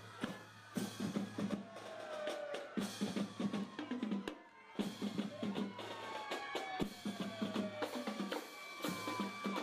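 Music with a busy drum-kit beat, bass drum and snare, and several falling pitch sweeps over it.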